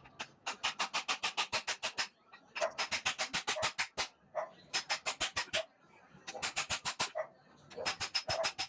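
Runs of sharp, rapid taps, about seven a second, each run lasting a second or so with short pauses between.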